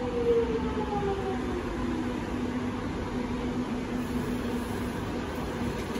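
Metro X'Trapolis electric train pulling into an underground station platform and slowing, its motor whine falling in pitch over the first second and a half, over a steady hum and the rumble of the train.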